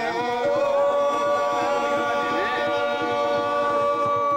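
Unaccompanied voices singing, holding one long note from about half a second in until near the end.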